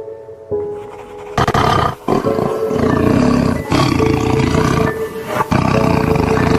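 A big cat roaring: four long, loud roars one after another, starting about a second and a half in, over background music with steady held tones.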